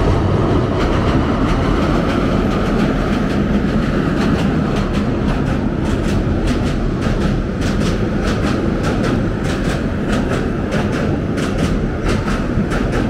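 Train crossing a steel girder railway bridge: a loud, steady rumble of wheels and girders, with a quick run of wheel clicks over the rail joints that gets busier about halfway through.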